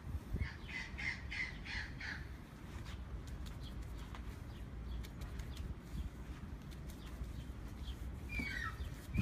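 A bird calling about five times in quick succession in the first two seconds, then a short falling call near the end, over a steady low rumble.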